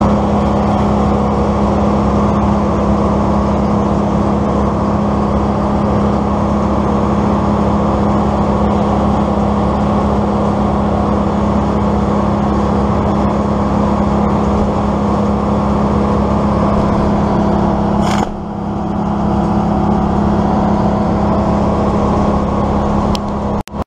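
A motor running steadily at one constant speed, with a strong even hum. The sound dips briefly about eighteen seconds in.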